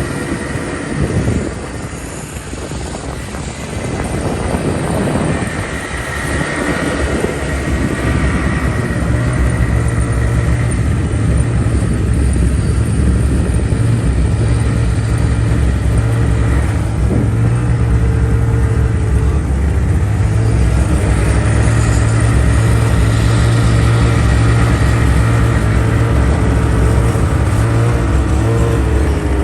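A large vehicle's engine running steadily nearby, a low steady hum that grows louder and settles after the first several seconds.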